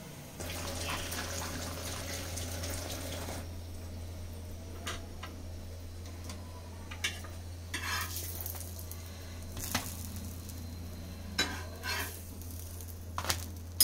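Quiet kitchen handling sounds: a soft hiss for the first three seconds, then scattered light taps and clicks of utensils and food being set down, over a steady low hum.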